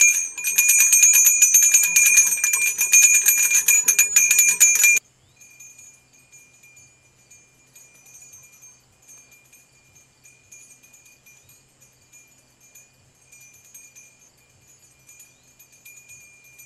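Small brass bell on a bracket with a hanging chain, rung rapidly and continuously, its strikes running together into a bright jangling ring. It stops abruptly about five seconds in, leaving only a faint thin high tone.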